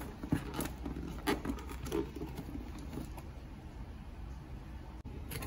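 Hands working the sealed tab of a cardboard laptop box: a few scattered light taps and scrapes on the cardboard, mostly in the first couple of seconds.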